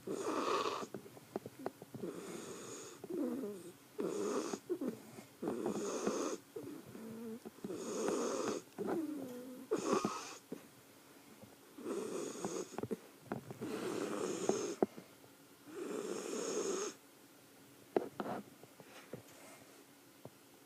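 A pet snoring in a steady rhythm, one snore about every two seconds, some with a wavering pitch. The snoring stops near the end, leaving only a couple of faint clicks.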